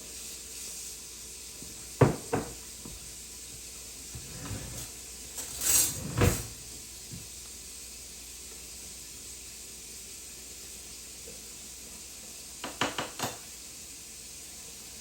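Kitchen handling sounds over a steady faint hiss: two knocks about two seconds in, a louder clatter around the middle, and a quick run of clicks near the end, like containers and a cupboard door being handled while soup is being made.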